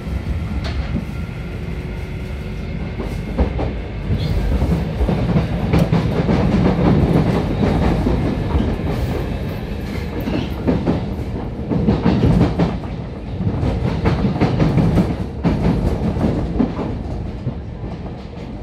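Running sound inside a JR Kyushu 811 series electric multiple unit motor car under way: a steady low rumble of motors and running gear with wheels clacking over rail joints and points, growing louder about four seconds in.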